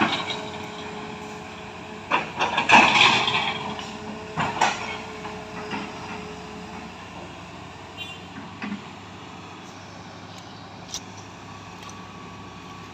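Diesel engine of heavy earth-moving machinery running steadily, with a loud knock at the start and a cluster of loud knocks and clatter between about two and five seconds in.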